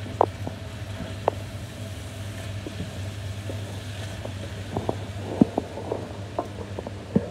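A utensil stirring minced beef, peppers and tomato in a frying pan, with irregular knocks and scrapes against the pan over a steady low hum.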